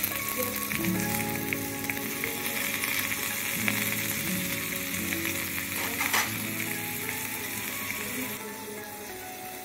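Hot oil sizzling steadily in a tiny aluminium pot as whole spices, then chopped onion and tomato, fry in it, with a spoon stirring. Background music with held notes plays underneath.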